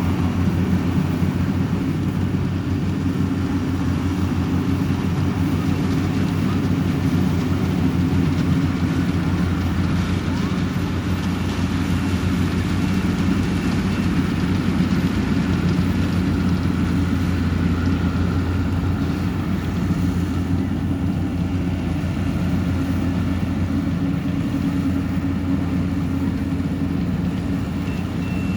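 Yanmar YH700 rice combine harvester's diesel engine running steadily under load. Its reversing beeper sounds briefly about halfway through and again near the end.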